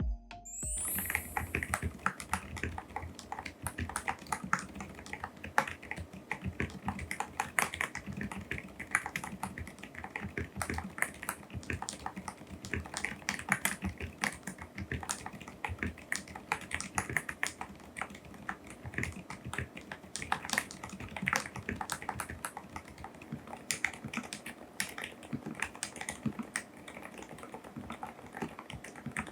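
Mechanical keyboard with silent (dampened) switches being typed on continuously, a fast, irregular run of keystrokes.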